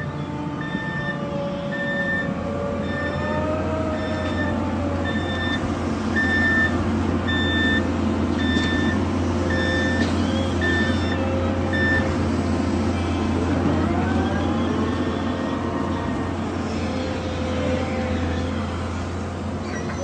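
Volvo wheeled excavator's diesel engine running, with hydraulic whine gliding up and down in pitch as the boom and bucket move. Its warning alarm beeps steadily, a little under twice a second, and stops about twelve seconds in.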